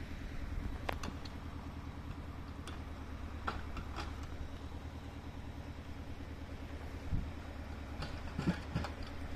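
An engine running steadily at a low, even idle, with a few sharp taps and knocks scattered through it.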